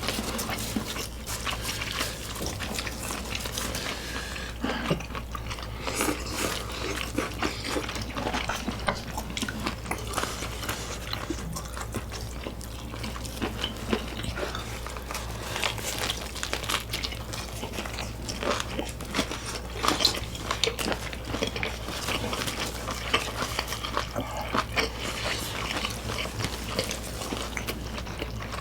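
Eating sounds: chewing and biting on spicy stir-fried squid and fried chicken, with scattered clicks of chopsticks and utensils against dishes.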